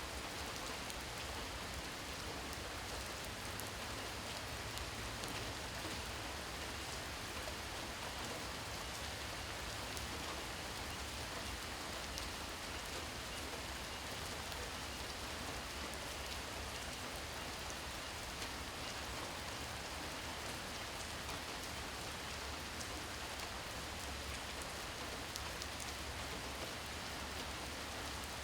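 Steady rain falling at night, an even hiss with many fine patters of drops landing on surfaces.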